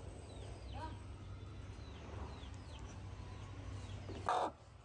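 A few short, falling bird chirps over a low steady rumble, with one brief loud noisy sound about four seconds in.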